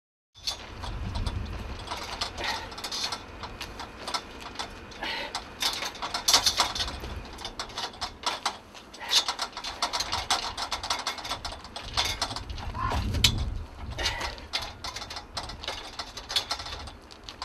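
Steel retractable lattice window grille being forced with a pry bar: irregular metallic clanking, rattling and scraping of the bar against the bars and scissor links, with dull thuds as the grille is wrenched. It starts about half a second in.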